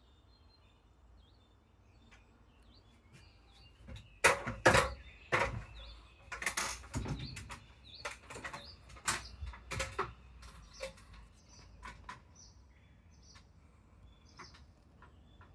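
Barn swallows giving faint, short chirps, broken from about four to ten seconds in by a cluster of loud knocks and rustles.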